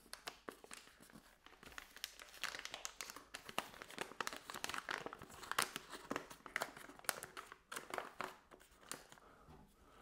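Foil bag of ground coffee crinkling as it is handled and opened, a run of short, irregular crackles.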